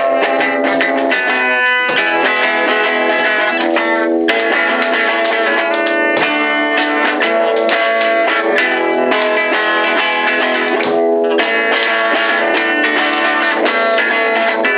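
Guitar chords strummed continuously by an amateur player, with brief breaks about four and eleven seconds in.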